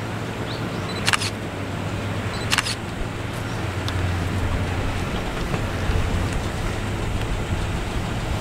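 Former Kintetsu electric train approaching slowly, a steady low hum, with two sharp clicks about a second and a half apart.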